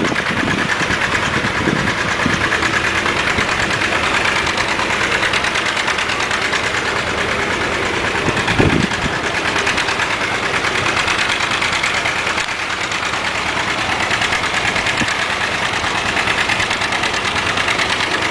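Antique tractor engine running steadily at idle with a fast, even firing rhythm, and a brief low thump about nine seconds in.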